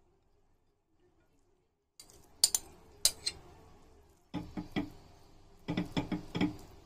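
Silent for about two seconds, then a spoon clinking and scraping against a glass bowl as noodles are pushed out onto a plate: a few scattered clinks, then two quick clusters of taps.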